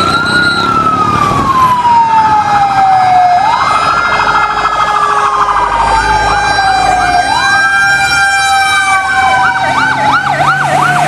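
Fire truck siren wailing: a slow rise and long fall in pitch that repeats about every four seconds, with fast overlapping yelps joining in over the last few seconds.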